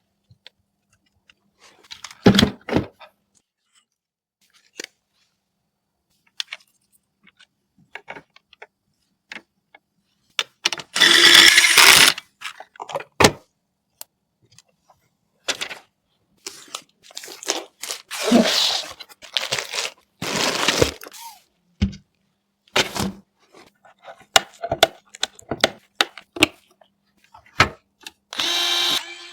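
Computer parts and packaging being handled during a PC build: scattered clicks, knocks and short scraping or rustling noises, with quiet gaps between them.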